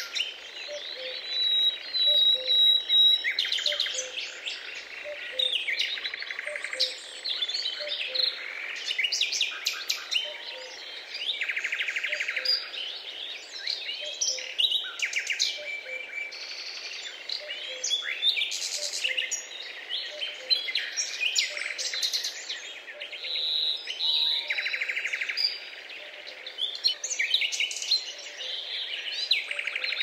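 Chorus of small songbirds: many overlapping high chirps, trills and rapid twitters, with a faint low note repeating about once a second underneath.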